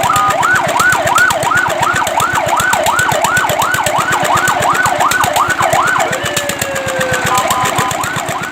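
Fire truck siren in a fast yelp, its pitch sweeping up and down about two and a half times a second. About six seconds in the yelp breaks into a falling tone and a few short steady tones, and the yelp starts again near the end.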